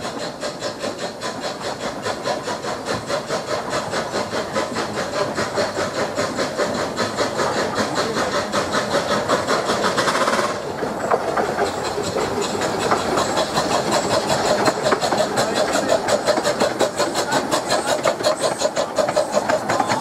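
Two 15-inch gauge steam locomotives double-heading, a Bassett-Lowke 4-4-2 and a Guest 2-4-2, working hard with a fast, regular exhaust beat over steam hiss, getting steadily louder as they approach and pass close by.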